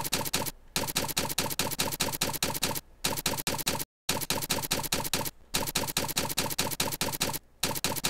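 Typing sound effect: a rapid, even run of keystroke clicks, about ten a second, one triggered for each letter that appears, breaking off briefly between words.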